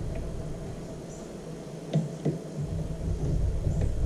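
Screwdriver clicking and knocking against small screws and the plastic housing of a Mosquito Magnet trap's power head: two sharp knocks about two seconds in and a few faint ticks, over a low rumble.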